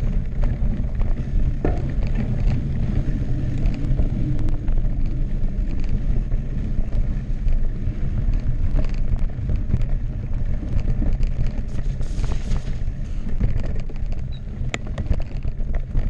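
Mountain bike rolling fast down a dirt trail: a steady low rumble of wind on the microphone and tyres on the dirt, with scattered sharp clacks as the bike rattles over bumps.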